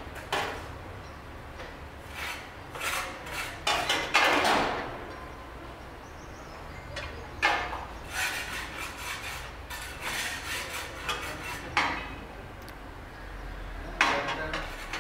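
Steel rebar and steel-fixing pliers clinking, rattling and scraping against each other on a work table as bars are handled and tied. The strikes are irregular, with a quick run of clicks about eight to ten seconds in.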